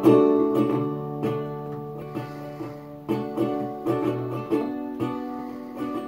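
Acoustic string instrument played solo: chords struck in a steady rhythm, with low bass notes ringing under them.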